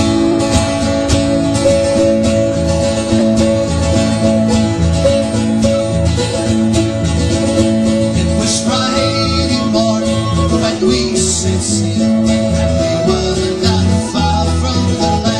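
Folk band playing a sea shanty: plucked and strummed strings carrying a steady beat under held notes.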